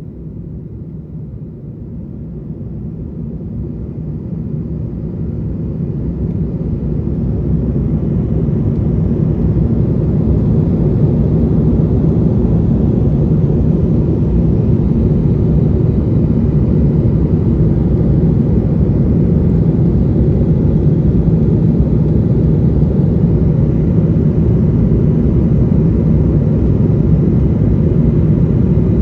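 Steady low drone of an airliner at cruise altitude heard inside the passenger cabin: jet engine and airflow noise. It grows louder over the first ten seconds or so, then holds steady.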